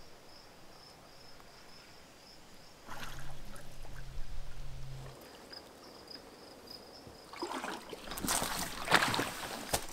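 Canoe paddle strokes in calm lake water, faint at first and growing into louder, splashier strokes in the last couple of seconds. A faint steady high insect drone runs underneath.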